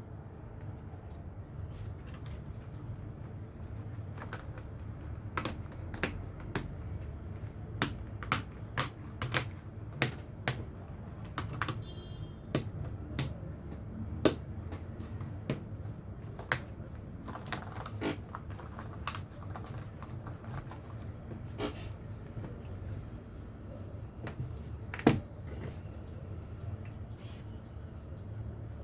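Irregular sharp clicks and taps of small hard parts, like keys pressed one at a time, spaced about half a second to a second apart and most frequent in the middle, over a low steady hum.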